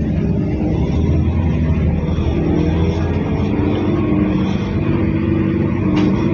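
Mercedes-Benz OC500LE bus engine running under way, heard from inside the bus, its pitch rising a little after about two seconds. The engine has the odd note that the rider, who says it sounded normal on an earlier ride, likens to a big metal box. A short click comes near the end.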